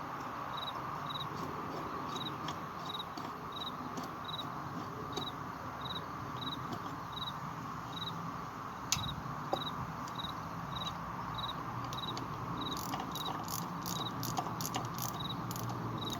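Steady high chirping repeating evenly about twice a second, the call of a cricket, over a constant background hum. A sharp click comes about nine seconds in, and a run of light metallic clicks follows in the last few seconds, a ratchet snugging nuts.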